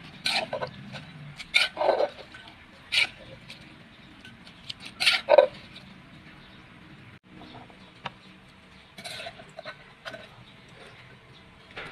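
A spoon knocking and scraping in a clay mortar as rice noodles are tossed with pounded-salad dressing: irregular sharp knocks, several loud ones in the first half and fainter ones near the end.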